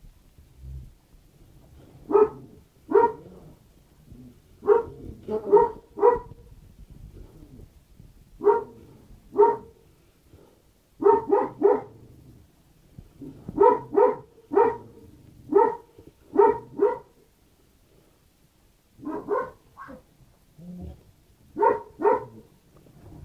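A dog barking repeatedly: short, sharp barks, singly or in quick runs of two or three, with pauses of a second or more between the runs.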